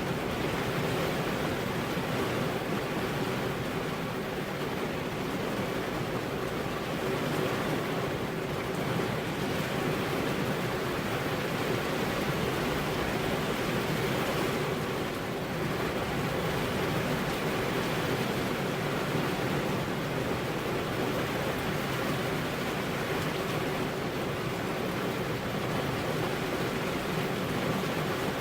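Steady rain falling, a dense even hiss with no breaks or distinct drops.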